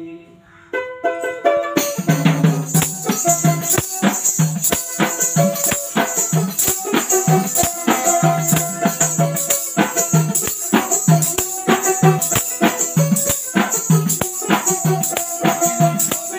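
Instrumental interlude of Baul folk music: a dotara picks a melody while an ektara twangs in a steady rhythm about twice a second, with a jingling rattle above. After a brief lull, the full band comes in about two seconds in.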